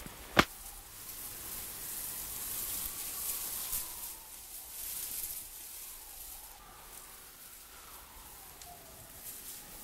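A single gunshot about half a second in, sharp and loud, then a steady low hiss with faint wavering high tones.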